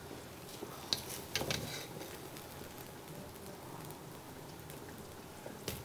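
Cooked white rice being spooned onto a ceramic plate with a serving spoon: soft pattering and a few light clicks of the spoon against the plate, clustered about a second in, with one more tap near the end.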